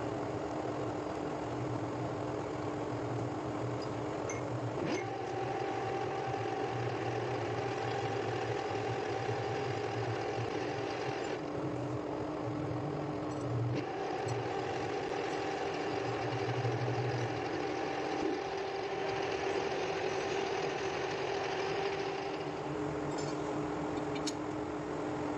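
Metal lathe running: a steady mechanical hum from its motor and gearbox, whose tones shift in pitch several times.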